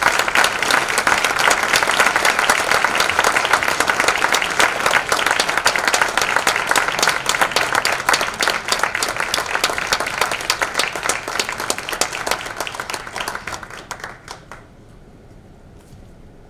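Audience applauding, a dense patter of many hands clapping, dying away about two seconds before the end.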